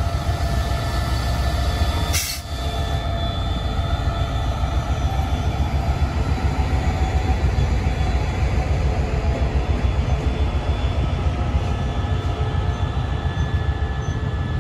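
Qishuyan diesel-electric locomotive leading a passenger train past close by: the engine's steady drone over a deep rumble. The coaches then roll past with a fast, even beat of wheels on the rails.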